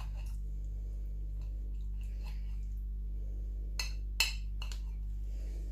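A knife cutting through a salt-preserved lemon, with faint scraping and two sharp clicks of the blade against a plate or board a little past the middle. A steady low electrical hum runs underneath.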